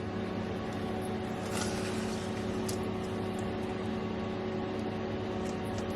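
Steady hum of an electric kitchen appliance motor running, with a few faint scrapes about one and a half and two and a half seconds in.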